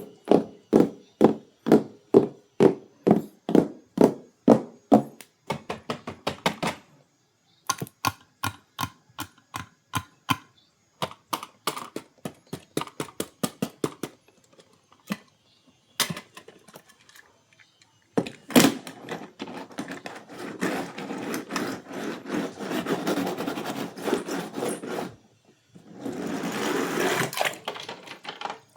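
Hands handling diecast toy packaging at close range: a quick run of clicks and taps, about three a second, then a denser crinkling rustle with clicks in it during the second half.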